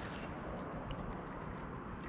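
Spinning fishing reel being cranked to wind in a hooked fish: a few faint clicks over a steady background hiss.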